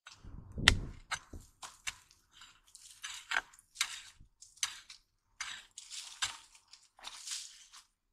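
Short-handled pick-mattock chopping and scraping into dry, stony soil, a dozen or so uneven strokes with small stones clinking. The loudest blow, a little under a second in, lands with a dull thud.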